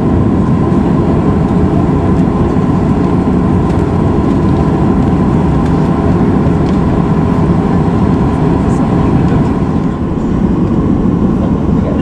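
Steady jet aircraft noise: a loud low rumble with a faint steady tone on top.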